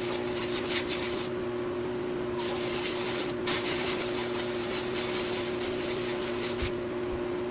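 Abrasive sanding on wood, a steady rasping hiss that pauses briefly a few times, over a constant machine hum.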